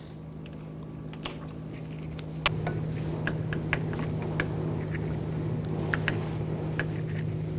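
Scattered light clicks and taps of hand tools tightening a screw inside a car door, over a steady low hum.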